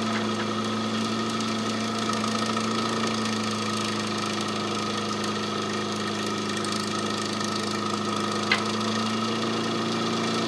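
Small electric motor driving a Marinov motor-generator, running with a steady hum while a resistor load slows it. A single sharp click about eight and a half seconds in.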